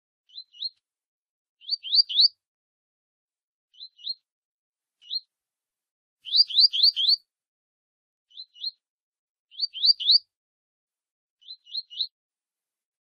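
Double-collared seedeater (coleiro) giving its 'tui tui' call: short, quick rising notes in bursts of one to six, about every one to two seconds, with the longest and loudest burst near the middle.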